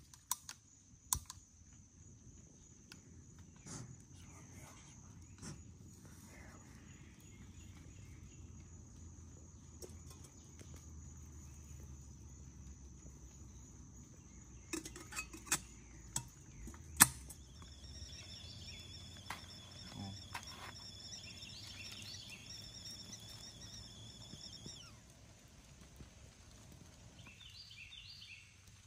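Metal clinks and taps from handling a small camping kettle and camp stove, a few near the start and a cluster in the second half, the sharpest click the loudest sound. A steady high insect drone runs underneath.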